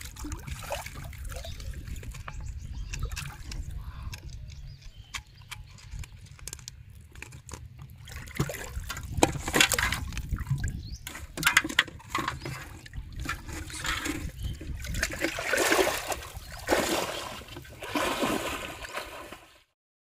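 Water splashing and sloshing as a hooked fish thrashes in shallow pond water, over a steady low rumble. Irregular splashes and knocks grow louder in the second half, and the sound cuts off just before the end.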